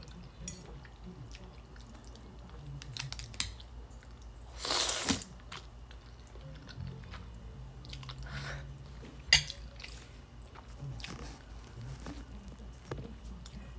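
Close-up eating sounds of noodles: quiet chewing, with a half-second slurp of noodles about five seconds in and a sharp click a little after nine seconds.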